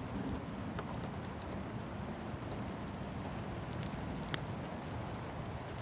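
Steady rain falling, with scattered sharp ticks and pops; the sharpest comes about four and a half seconds in.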